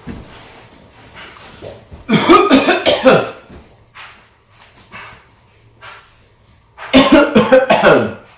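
A person's staged, fake coughing fit: two bouts of several quick coughs, each about a second long, one about two seconds in and one near the end.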